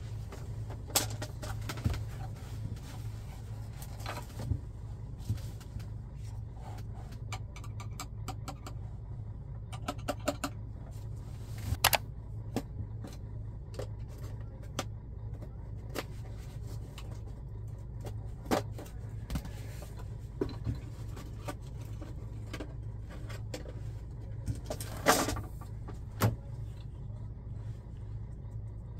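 Scattered clicks and knocks of plastic parts and screwdrivers as a DAF truck instrument cluster is taken apart, over a steady low hum.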